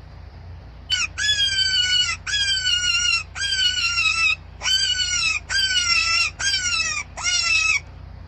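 A bird calling over and over: about seven loud pitched calls in quick succession, each under a second long, opening with a sharp upward jump and then holding a fairly level pitch.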